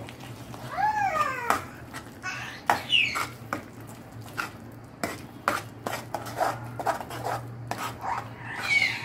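A baby's high, playful squeals, several arching calls, over a steel ladle scraping and clinking against a metal kadhai as thick gravy is stirred. The squeals are play, not crying.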